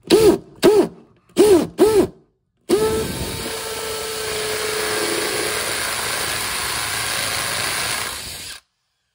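Makita cordless drill with a masonry bit drilling a fixing hole into a plastered wall. In the first two seconds the motor gives four quick trigger blips, each spinning up and down. It then runs steadily through the wall for about six seconds and stops sharply.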